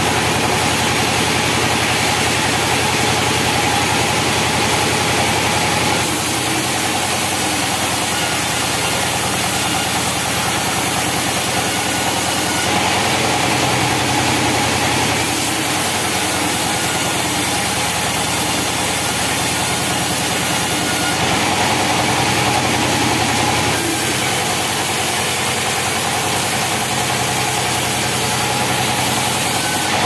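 Sawmill saw machinery running steadily, a loud even mechanical drone. The sound changes a few times as boards are fed through the saw.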